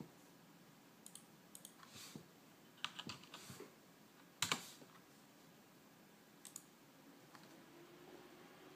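Faint scattered clicks and taps, a few in quick succession, the loudest about halfway through. Near the end a faint steady hum sets in and rises slightly in pitch.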